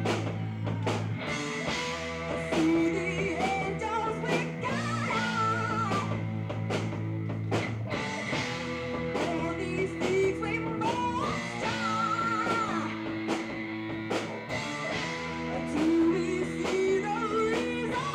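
Live rock band playing a song: a woman sings over electric guitars and a drum kit.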